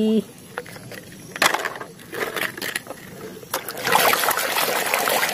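Muddy water sloshing and splashing in a basin as a plastic toy truck is dunked and scrubbed by hand, with a few light knocks of the toy before it goes in. The splashing starts nearly four seconds in and is the loudest sound.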